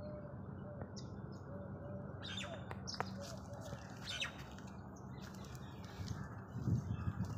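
Leaves and dry twigs rustling in short scratchy strokes as the phone is pushed into a shrub, most of it in the middle seconds.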